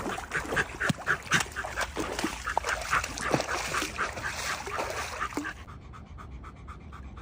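A pet dog eating, with quick wet smacking mouth sounds at about four a second that stop about five and a half seconds in.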